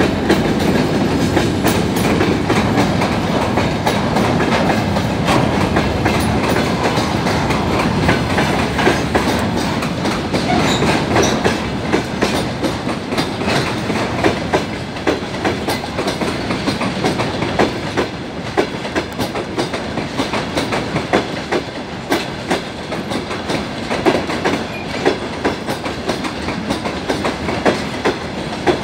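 Freight train wagons rolling past, their wheels clattering over the rail joints in a steady clickety-clack with many sharp clicks. A heavier rumble in the first few seconds thins out.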